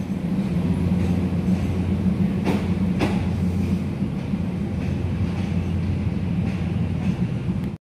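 Diesel railcar's engine running with a steady low drone, with two faint clicks about two and a half and three seconds in.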